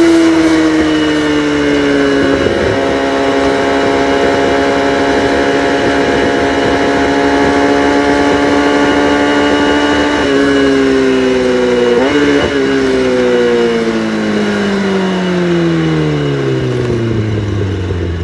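Kawasaki ZX-6R inline-four sport bike engine running through a cat-deleted exhaust, holding nearly steady revs for about ten seconds, then the revs fall away for the rest of the clip, as when the bike slows, with a brief blip about twelve seconds in.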